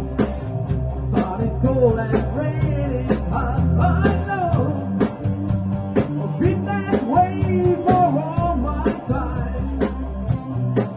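A rock song with a sung lead vocal over guitar, bass and drums keeping a steady beat.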